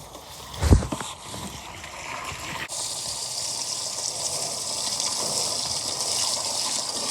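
Water running into an emptied pond basin to refill it: a steady, hissing splash that comes on strongly about three seconds in, after a thump near the start.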